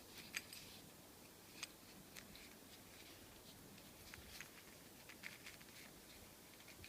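Faint, scattered small clicks and taps from a padlock being handled and set into a vise.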